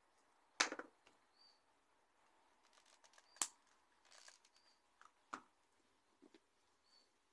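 Handling noise of paper-crafting tools and card on a tabletop: four sharp knocks and taps, the loudest about half a second in, with soft rustling between. A faint short high chirp recurs now and then in the background.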